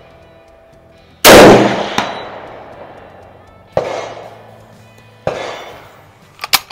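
A custom Mosin Nagant rifle fires a 7.62x54R handload, one very loud shot with a long decay, and a faint clang follows about three-quarters of a second later as the bullet strikes the steel plate at 200 yards. Two fainter shots from other shooters come later, and metallic clicks near the end are the rifle's bolt being worked.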